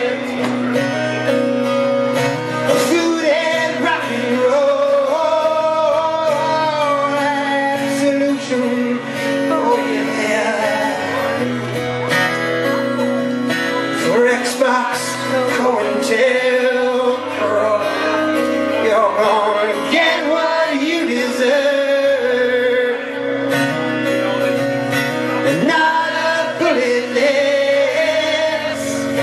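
Male vocalist singing over a strummed twelve-string acoustic guitar, a live acoustic rock song.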